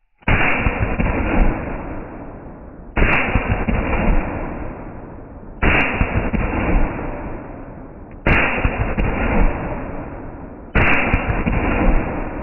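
Beretta 1301 Tactical semi-automatic 12-gauge shotgun firing 3-inch Brenneke Black Magic magnum slugs in rapid succession, with the audio slowed to one-eighth speed. Each shot becomes a deep, drawn-out boom that hits suddenly and fades slowly. Five shots fall about two and a half seconds apart in the slowed audio, a third of a second apart in real time.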